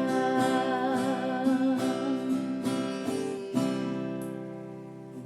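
Acoustic guitar strumming the closing chords of a gospel song, with a long held sung note wavering over it, the music fading out near the end.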